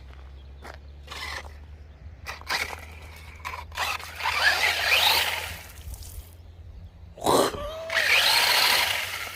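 Electric RC crawler truck's motor and gearbox whining in several short throttle bursts, its wheels spinning and scrabbling as it tries to climb an obstacle. The two longest bursts come near the middle and near the end.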